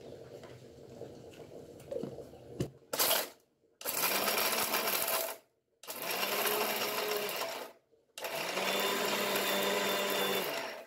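Electric mixer grinder run in short pulses, grinding lumps of thread rock sugar (mishri) to powder in its steel jar. After faint handling sounds, the motor starts four times: once very briefly, then three runs of about two seconds, each rising in pitch as it starts.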